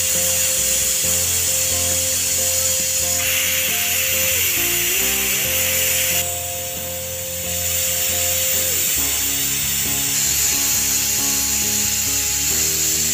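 Aluminium pressure cooker whistling, steam hissing loudly and steadily out past its weight valve: the cooker has come up to pressure and is counting off whistles. The hiss changes abruptly a few times, over background music with held notes.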